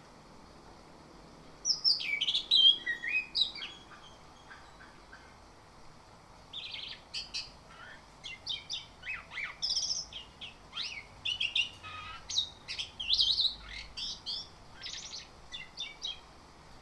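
Chestnut-capped thrush (anis kembang) singing a varied song of quick whistles, slurred notes and chattery phrases. A short burst comes about a second and a half in, then after a brief pause the song runs on in a long, busy string of phrases.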